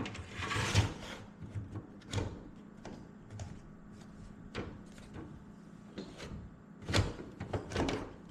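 The cover of a Razer Core X V2 external GPU enclosure being slid and pressed into place: a scrape in the first second, then scattered knocks and clicks, the loudest a few clustered near the end. The cover is catching on the cabling inside, so it is not seating cleanly.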